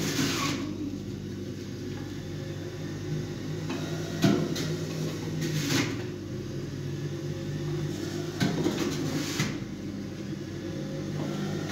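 A steady low hum with several sharp knocks over it, a few seconds apart.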